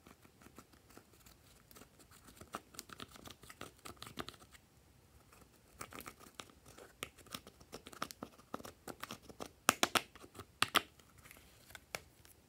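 Eyeshadow being scraped out of a makeup palette's pans with a hand tool: quick, irregular scratching and clicking strokes. A few louder, sharper clicks come near the end.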